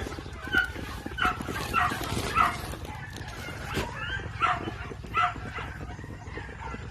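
A series of short animal calls, about seven in five seconds, over a steady low background noise.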